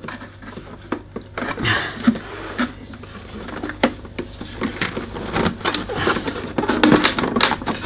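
Irregular clicks and knocks of hard plastic as the plastic body of a Miele S226 vacuum cleaner is handled, lifted and pried at by hand to free a stuck panel.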